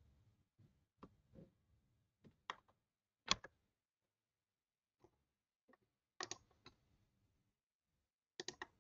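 Faint, scattered clicks of a computer mouse and keyboard, about ten in all, the loudest a little after three seconds in, with a close pair and a quick run of three near the end.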